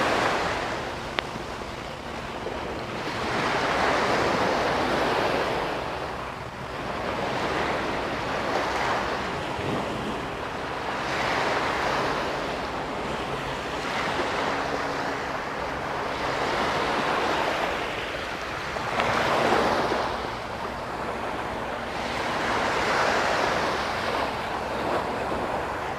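Sea waves breaking and washing up on a sandy beach, the surf swelling and falling away every few seconds.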